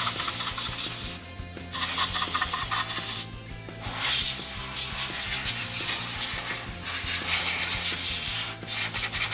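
Compressed-air blow gun hissing in four long blasts with short pauses, blowing steel chips off the mill vises.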